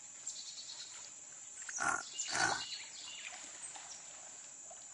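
Steady high-pitched insect chorus from the creek woods, broken about two seconds in by two short, louder noises half a second apart.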